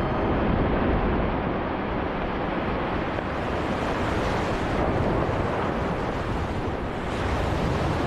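Ice calving from the front of the Perito Moreno glacier: a long, continuous crash and rumble of collapsing ice and churning, splashing lake water as the chunks plunge in.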